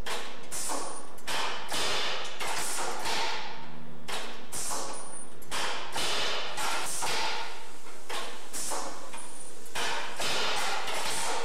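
A run of irregular thuds or knocks, roughly one to two a second, over a steady background noise.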